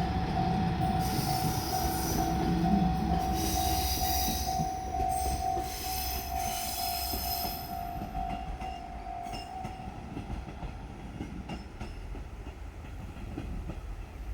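Level crossing warning bell ringing in a fast, steady repeat while a JR Shikoku Series 1500 diesel railcar passes with its wheels squealing on the rails, over a low engine rumble. The squeal fades out around eight seconds in and the bell stops about two seconds later.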